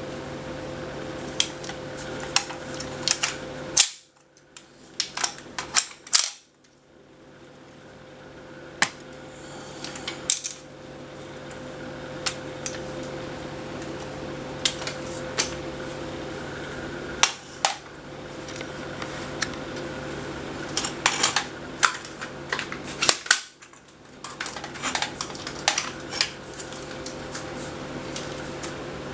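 Sharp, irregular metallic clicks and snaps from a full-metal JG HK416 airsoft rifle, some in quick clusters, over a steady background hum.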